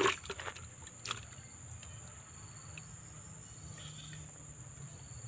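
Steady high-pitched drone of insects in the surrounding vegetation, with a single click about a second in.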